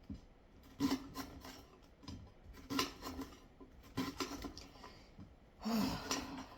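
Kitchen knife cutting vegetables on a cutting board: irregular cuts and taps with some scraping, roughly a second apart.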